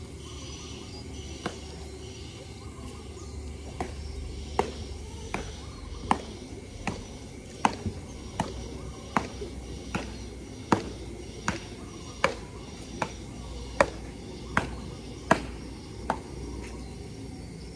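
Sharp knocks repeating at an even pace, about four every three seconds, over a low outdoor hum. They begin about four seconds in and stop shortly before the end.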